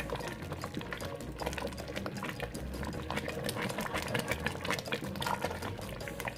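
Pot of egusi soup simmering, a dense stream of small bubbling pops and crackles over a low steady hum.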